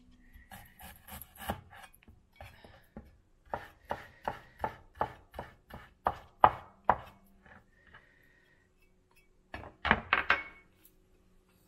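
Cleaver chopping ginger on a wooden cutting board: a quick run of sharp knocks for about seven seconds, then, after a short pause, a few more knocks near the end.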